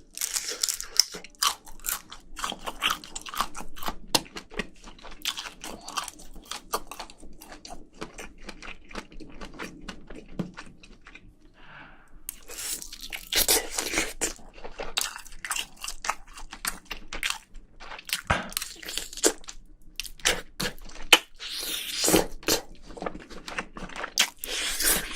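Mouth chewing and crunching on braised spicy seafood, a quick run of wet, crackly bites with louder, denser stretches of crunching about halfway through and again near the end.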